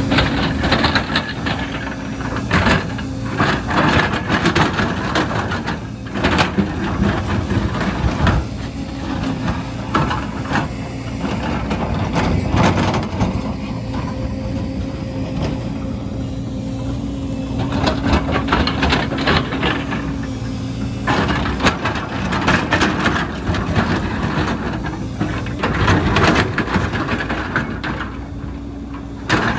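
Excavator engine running steadily, with repeated clattering and scraping of rock and soil as the bucket works.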